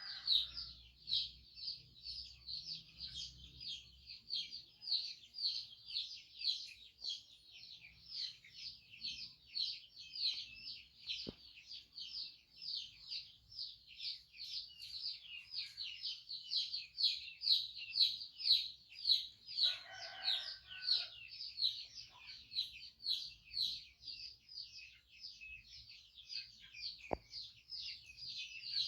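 High-pitched chirping: short calls that each sweep downward, repeated steadily about three times a second without a break. A brief lower sound comes about two-thirds of the way in, and two sharp clicks come partway and near the end.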